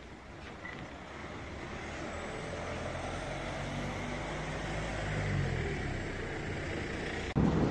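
A motor vehicle's engine growing louder over several seconds as it draws near, peaking about two-thirds of the way through, then cutting off abruptly near the end.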